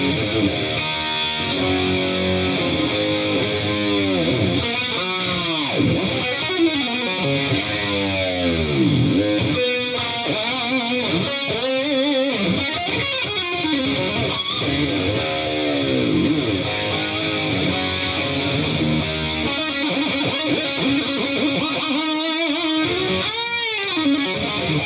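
Jackson Soloist SLX electric guitar played through a Marshall amp: a solo of picked single notes with repeated swooping pitch bends that rise and fall.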